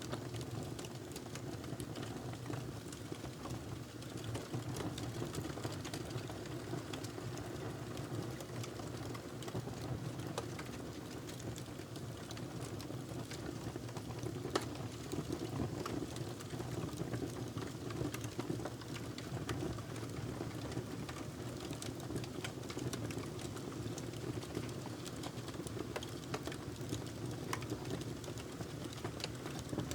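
Wood fire burning in a fireplace: a steady low rumble of flames with frequent small crackles and pops, one pop louder than the rest about halfway through.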